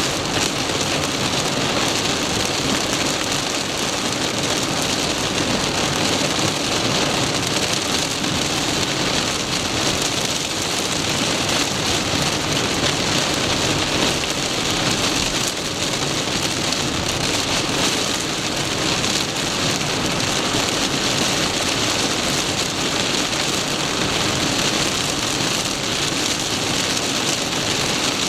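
Torrential downpour beating on a car, heard from inside the moving car as a steady, dense hiss.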